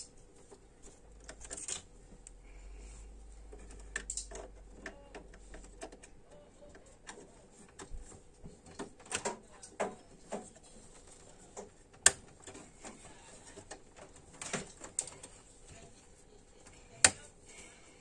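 Scattered small clicks, taps and rattles of hands handling DDR2 RAM sticks and plastic parts inside an open Dell OptiPlex 760 tower case, with two sharper clicks in the second half.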